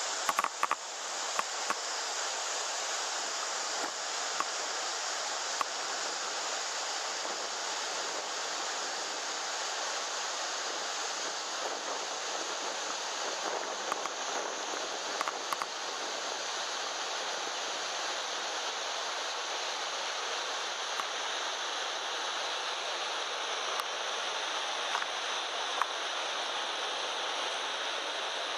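Mountain river water rushing steadily over rocks, with a few faint clicks near the start and about halfway through.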